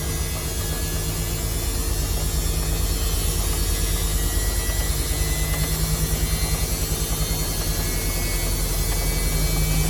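Samsung washing machine running on a darks 40°C wash: a steady motor hum with a fast low throb from the turning drum and a faint whine, growing a little louder near the end.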